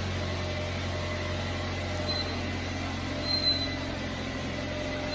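Truck engine running at a steady low hum, with several brief high squeaks from about two seconds in.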